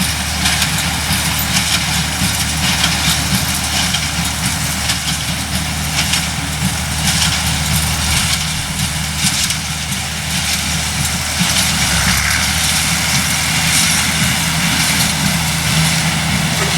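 A heavy engine running steadily at a constant speed, with no revving or change in pace.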